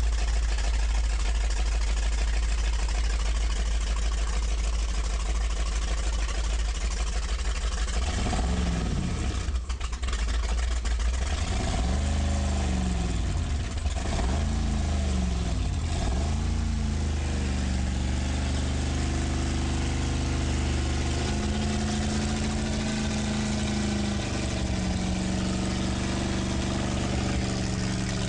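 Ford 351 cubic-inch marine V8 running on a test stand, revved up and down several times about a third of the way in, then settling back to a steady run. Its water-cooled exhaust is spraying water near the end.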